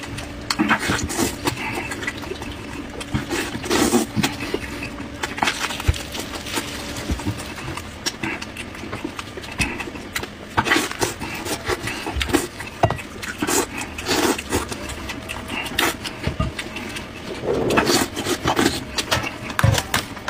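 Close-up chewing and lip-smacking on braised sheep head meat, with irregular crackling and clicking as gloved hands tear the meat and skin off the head. A faint steady hum runs underneath.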